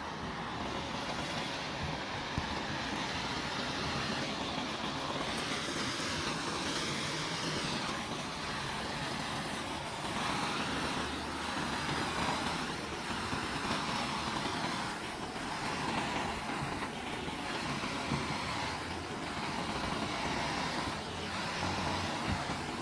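Heat gun running steadily, blowing hot air onto KeelEazy keel-guard tape to make it stick to the kayak hull. From about ten seconds in the hiss swells and fades roughly once a second.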